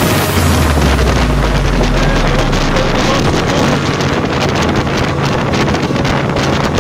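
Evinrude Fastwin twin-cylinder two-stroke outboard running steadily, pushing an inflatable dinghy along. Heavy wind buffets the microphone over the engine.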